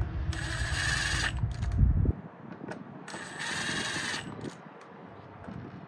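Cordless screw gun running as it drives the screws holding a deadbolt's plate, stopping abruptly about two seconds in once the screws are snug, followed by light handling sounds.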